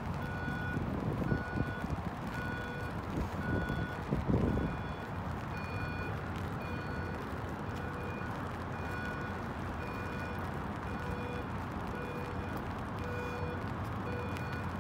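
An electronic beeper sounds a short tone about every 0.7 seconds, like a reversing alarm, over a steady hiss of rain and city background. A lower beep joins about halfway through, and there is a louder low rumble in the first few seconds.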